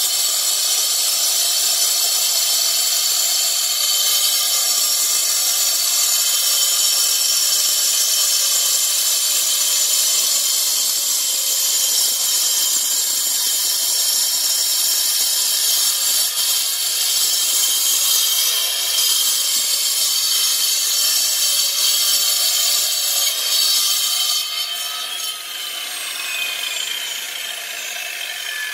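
Angle grinder with a water-cooled diamond disc cutting through a slate slab: a steady high-pitched whine over a gritty grinding hiss. About three-quarters of the way through the cut ends and the motor's whine falls away as the disc spins down.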